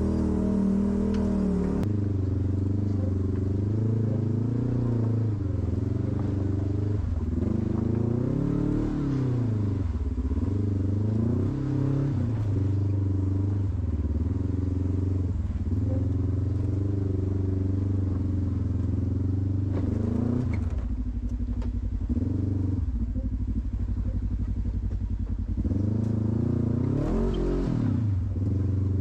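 Off-road vehicle engine running steadily, revving up and dropping back several times as it works over the trail.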